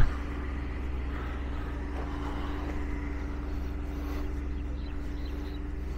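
An engine running steadily: a constant low hum with one unchanging tone above it.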